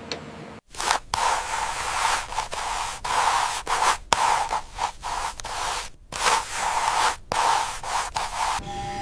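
Harsh, scratchy scraping noise that starts abruptly under a second in and comes in stretches broken by sudden short gaps, stopping just before the end.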